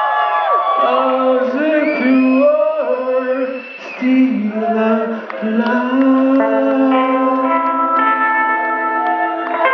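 Live band playing with a man singing. His voice slides between notes in the first half, and the second half settles into long held notes.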